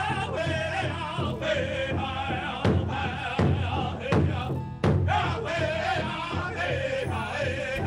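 Powwow big drum group: several singers in high, wavering voices over unison beats on a large hide-covered drum struck with padded beaters.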